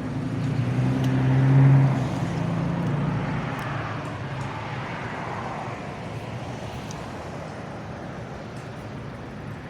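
A motor vehicle passing by: its engine hum swells to its loudest about a second and a half in, then the road noise slowly fades away.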